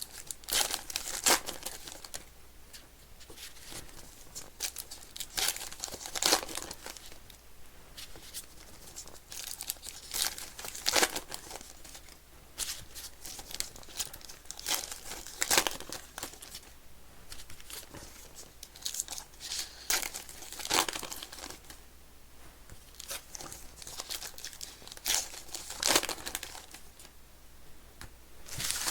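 Trading-card packs being torn open one after another, the wrappers crinkling and ripping in short bursts about every five seconds, with quieter handling of the cards between.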